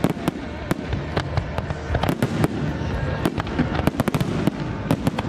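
Fireworks display: aerial shells bursting in quick, irregular succession, many sharp bangs and crackles over a continuous low rumble.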